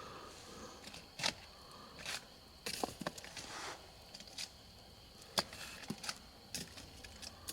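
Scattered sharp clicks, snaps and knocks at irregular intervals, with soft rustling and a brief swish about three seconds in.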